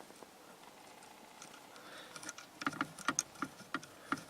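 Light metallic clicks and taps from fitting the original steering-shaft nut onto the steering column over the wheel adapters, coming about three to four a second in the second half.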